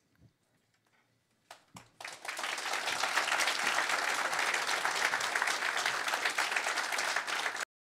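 Audience applauding: a couple of first claps, then a full round of steady applause from about two seconds in, which cuts off suddenly near the end.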